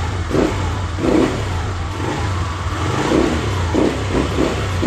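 Kymco Easy 100 scooter's 100 cc four-stroke engine running just after being started on freshly changed 10W-50 oil, idling with short throttle blips about once a second.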